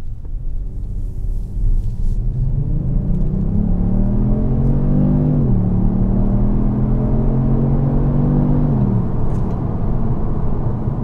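Kia Stinger GT2's 3.3-litre twin-turbo V6 under hard acceleration in sport mode, heard from inside the cabin: the engine note climbs for about five seconds, drops sharply at a gear change, pulls on for about three seconds, then falls away as the throttle is lifted near the end. A low road rumble runs under it.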